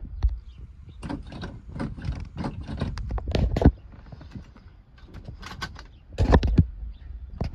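Starter of a 1971 car cranking the engine slowly in labouring bursts, about four compression knocks a second, without it catching: the battery is low after a winter off its tender. A sharp click near the end.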